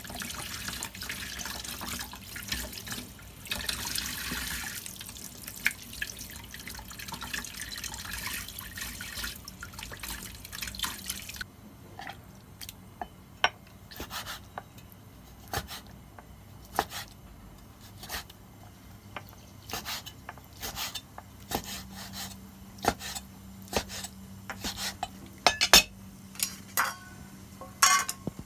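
Tap water running into a stainless steel sink while raw chicken thigh is rinsed and rubbed by hand. About eleven seconds in the water stops, and a cleaver knocks on a wooden chopping board at irregular intervals as the chicken is cut into pieces, the knocks loudest near the end.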